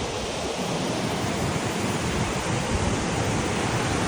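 Steady, loud roar of a large waterfall, the Sipiso-piso falls: water falling from height.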